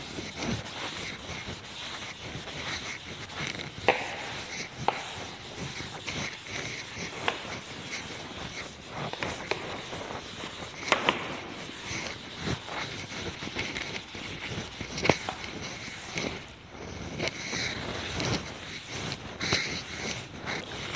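Chalkboard duster rubbing across a chalkboard, a continuous scrubbing scrape with scattered sharp knocks.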